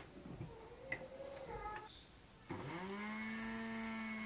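Electric mixer grinder switched on a little past halfway: its motor hum rises quickly in pitch and then runs steadily as it grinds poppy seeds in a small steel jar. Before that come a few faint light knocks as the jar is set on the base.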